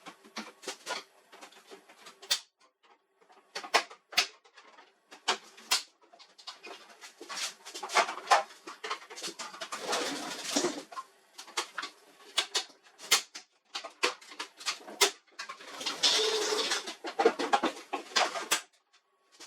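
Irregular clicks, knocks and scraping of plastic and metal printer parts being handled and taken apart, with longer stretches of scraping about eight seconds in and again near the end.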